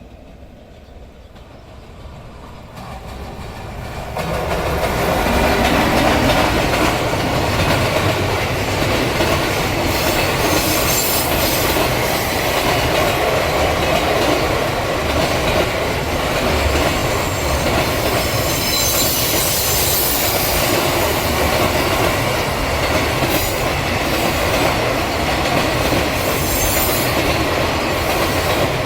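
A freight train approaching and then running past close by, its wagons clattering along the rails. It grows louder over the first few seconds, then stays loud and steady as the long train keeps passing.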